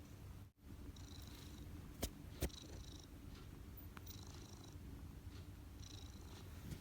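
Domestic cat purring steadily while kneading, a low pulsing rumble. It drops out very briefly about half a second in, and two sharp clicks come shortly after two seconds in.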